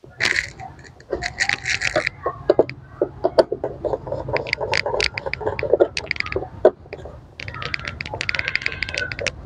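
Screwdriver working a plywood wing onto a model plane's fuselage: scrapes, knocks and scattered clicks of tool and thin plywood, with two runs of rapid even ticking, about a second in and again near the end.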